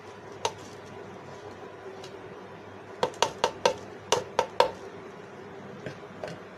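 Kitchenware clinking as a steel bowl of ground spices is emptied into a food chopper bowl: one clink about half a second in, then a quick run of about eight sharp clinks starting about three seconds in.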